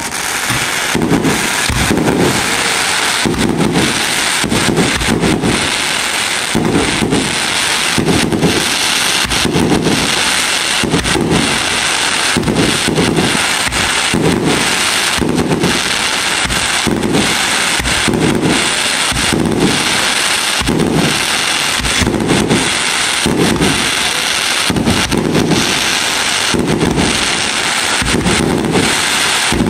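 Close-range fireworks: a ground-level firework cake firing shot after shot in a steady, regular rhythm of low thumps, with sharp crackles and bangs over a continuous loud hiss.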